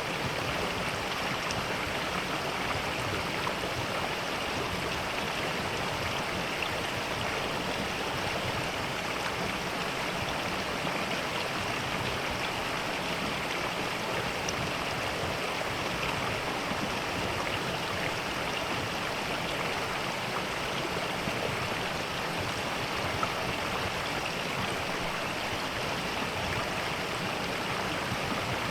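Mountain valley stream flowing steadily.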